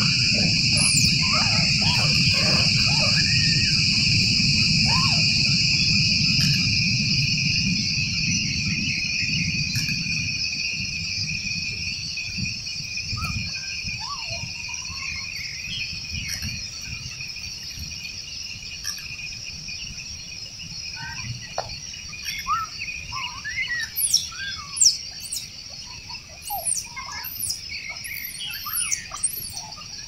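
Steady chorus of insects, a continuous high whine in two bands, over a low rumble that fades out after about ten seconds. Short scattered chirps and squeaks come through it, growing busier with quick high calls near the end.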